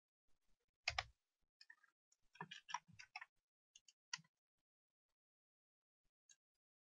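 Faint, scattered clicks of a computer mouse and keyboard in use. There is one louder knock about a second in and a quick run of clicks a little after two seconds, then it goes almost quiet.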